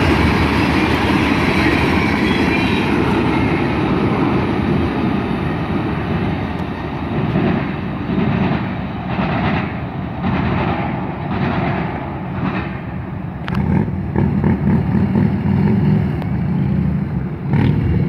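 Freight train rolling past: a steady rumble and rattle of freight cars on the rails thins out into a regular clatter about once a second as the last cars go by.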